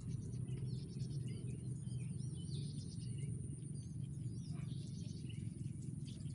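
Small birds chirping now and then over a steady low rumble of background noise.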